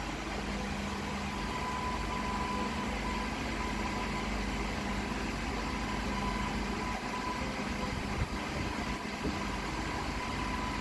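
Steady machine hum with a faint high whine, broken by one small click about eight seconds in.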